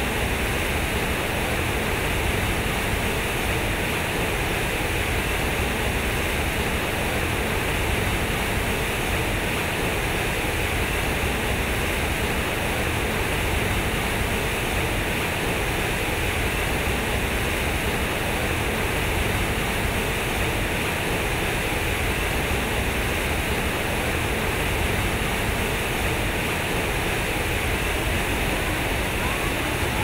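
Concrete sculpture fountain: heavy streams of water pouring from its spouts and splashing into the pool below, a steady, unbroken rush.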